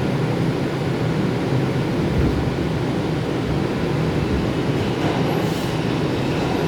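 R142 subway train running, a steady low-pitched noise of the car in motion, with a faint brief hiss about five and a half seconds in.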